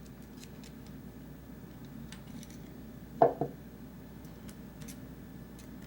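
Faint small clicks and light metallic handling as the old pivot bearings are worked out of a folding knife's handle, with one short, louder sound with a falling pitch about three seconds in.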